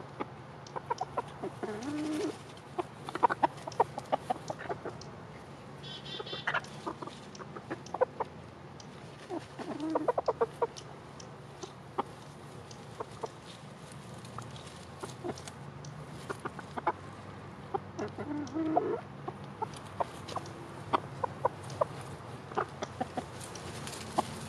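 Cochin and Silkie bantam chickens clucking softly a few times, low and brief, among many small clicks and ticks as the birds peck at the ground.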